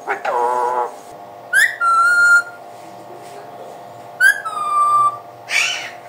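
Ring-necked parakeet calling: a short voice-like call, then two whistles about two and a half seconds apart, each opening with a quick upward chirp and holding a steady note, and a brief harsh squawk near the end.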